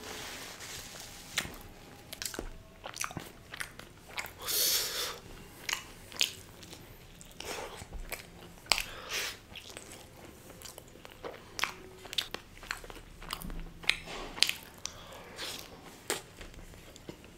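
Close-miked eating sounds: biting and chewing a slice of cheese burst pizza topped with paneer in gravy. The chewing is full of short sharp wet clicks, with a few longer crunchy bites of crust, the loudest about four and a half seconds in.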